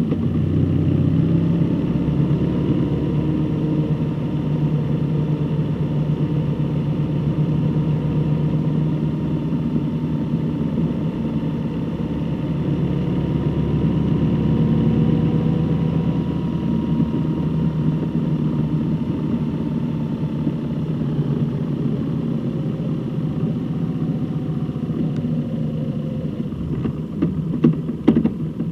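Vehicle engine running steadily under way, with road noise, its pitch drifting slightly. A few sharp clicks come near the end, just before the sound eases off.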